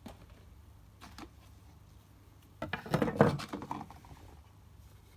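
Enclosure and tub being handled: a few faint clicks, then about a second of clattering knocks and rustling about two and a half seconds in.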